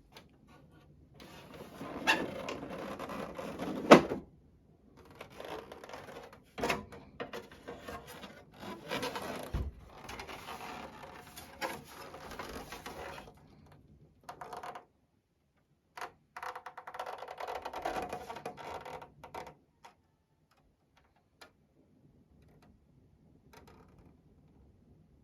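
Plastic housing and parts of a Sharp KI-BX70 humidifying air purifier being taken apart by hand: intermittent clicks, knocks and rattles as panels are unclipped and pieces handled, with a sharp knock about four seconds in and a pause near the end.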